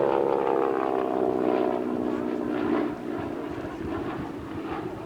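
North American Harvard's radial engine and propeller passing in a fly-by. The note falls in pitch as it goes by and fades after about three seconds.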